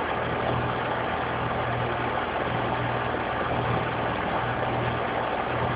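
Air-conditioning condensing unit running: a steady mechanical hum of the compressor and condenser fan, with a low throb that swells and fades regularly.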